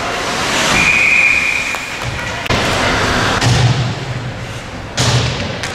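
Ice hockey rink sound: a referee's whistle blows once, a steady tone of about a second, just under a second in. Over the constant rink noise come low thuds and a couple of sharp knocks near the end, the sounds of play on the ice.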